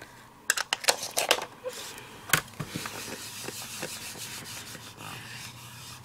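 A few sharp plastic clicks and taps, then a steady scratchy rubbing as a round ink pad is rubbed over a clear stamp held in a stamp positioner to re-ink it.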